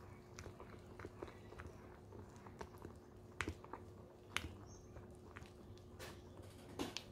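Silicone spatula stirring thick almond-flour and cream cheese cake batter in a bowl: soft wet squishing and scraping with scattered light clicks of the spatula against the bowl, the sharpest ones about halfway through and near the end.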